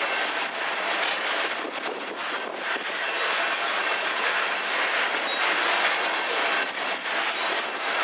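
Freight train cars rolling past, wheels clattering over the rail joints with irregular clicks and a faint high wheel squeal.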